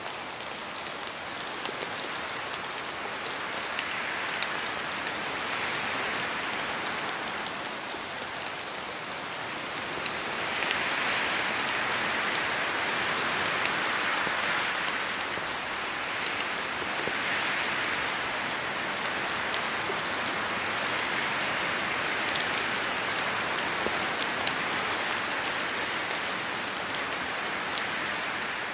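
Steady rain falling in a forest, with a dense hiss, many scattered sharp drop ticks, and a hiss that swells and eases every few seconds.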